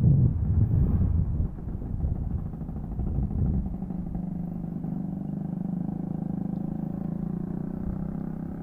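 Classic Vespa scooter's two-stroke single-cylinder engine running steadily on the road. It is running in a newly fitted IDP cylinder. Wind buffets the microphone in the first second or so.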